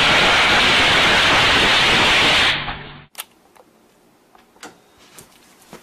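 A loud, steady hissing rush that lasts about two and a half seconds and then fades away, followed by a few faint clicks.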